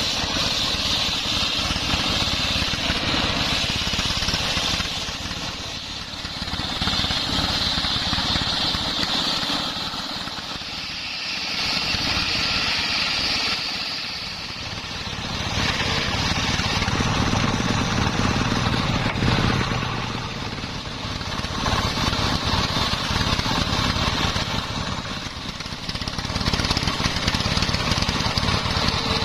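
Homemade circular-saw sawmill, its blade belt-driven by a stationary engine, ripping sengon logs. The engine runs steadily under a high whine from the blade that swells each time it bites into the wood and eases between passes, about six times.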